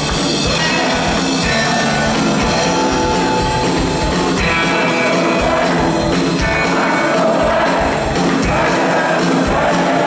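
Live rock band playing loudly: electric guitars, bass and drum kit, with cymbals keeping a steady beat.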